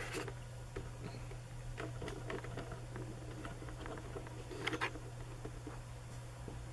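Scattered light taps and clicks of pieces being handled, with a pair of sharper clicks near five seconds, over a steady low hum.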